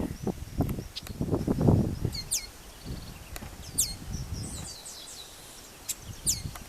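Chestnut-capped blackbirds singing: about four sharp whistles that slide steeply down in pitch, with shorter chattering notes around the middle. Bursts of low rumbling noise sit beneath them, loudest about a second and a half in.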